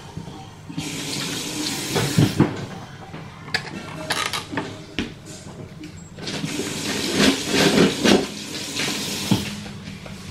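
Bathroom sink tap running over hands being washed, in two spells: one from about a second in, and one from about six seconds in. Each spell comes with splashing.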